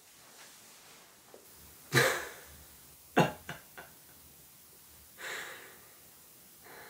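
A man laughing in short, breathy bursts: one burst about two seconds in, a sharp laugh a second later with two quick follow-ups, then one more breathy laugh near the end.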